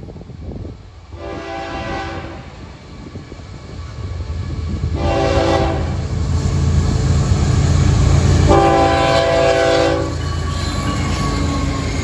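Freight locomotive horn sounding three blasts, the last the longest, over the low rumble of the approaching Florida East Coast Railway freight train, which grows louder as it nears.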